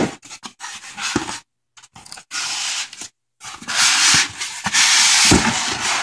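Styrofoam packing insert being worked out of a cardboard box by hand, rubbing and scraping against the cardboard in short bursts. From about halfway it turns into a longer, louder stretch of scraping, with a couple of knocks near the end.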